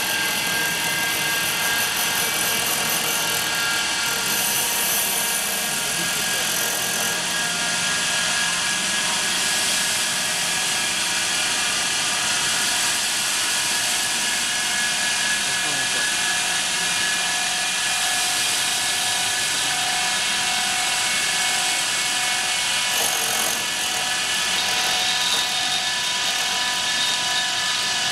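CNC cutting machine for mineral wool and foam running, its thin cutting band passing through a white slab: a steady mechanical whine with several held tones.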